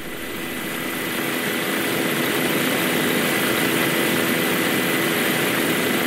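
Steady aircraft engine noise heard from aboard the aircraft: an even rushing hiss with a faint high whine, fading up over the first couple of seconds and then holding level.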